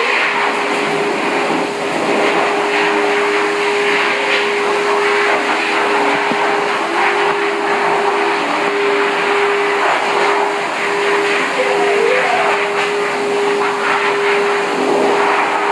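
Pet blow dryer at a dog-wash tub running through its ribbed hose: a steady rush of air with an unchanging motor whine.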